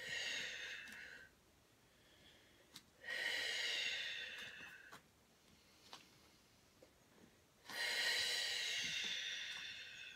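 A woman's long, audible yoga breaths, three of them about four seconds apart, each a steady breathy hiss that fades away, taken while she holds a head-down inversion.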